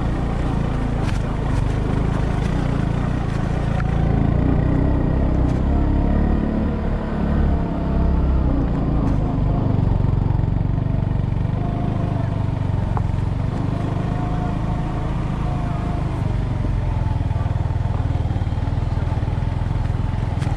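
Off-road vehicle's engine running steadily under way, with heavy low rumble and noise from the ride.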